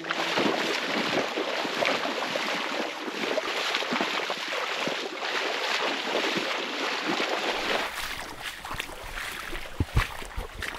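Dense shrubs and grass rustling and swishing against legs and clothing as someone pushes through them on foot, a continuous crackling brush of leaves and twigs. A few seconds before the end it drops to a softer, lower sound with a single knock.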